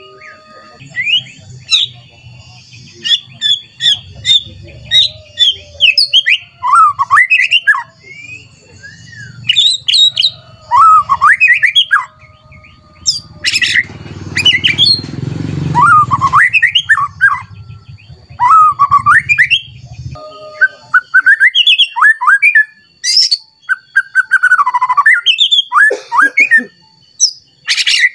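White-rumped shama (murai batu) singing loudly and continuously: rapid, varied phrases of whistles, chirps and quick trills with sliding notes, the heated, rival-seeking song in which it unloads its repertoire of learned phrases. A low rumble lies under the song for the first two-thirds, with a short burst of noise about 14 seconds in.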